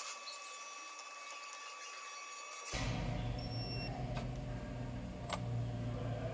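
Digital torque wrench beeping: one steady high electronic tone for about the first three seconds as the wrench is pulled on the spindle's hub nut, the wrench's signal that it has reached the set torque. The tone stops and a steady low hum takes over, with a faint click near the end.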